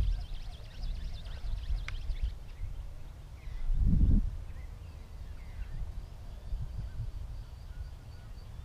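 Wind buffeting the microphone in an uneven low rumble, with a strong gust about four seconds in. Faint bird chirps sound over it.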